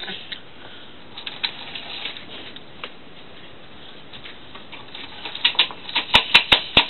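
Toy trains moving along a wooden window sill, rattling faintly, then a fast run of sharp clicks and clacks that starts about five seconds in and grows louder.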